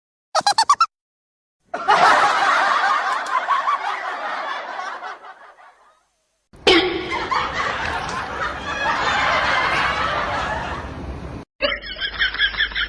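People laughing in a string of short clips, each cut off abruptly, with a brief silence between clips.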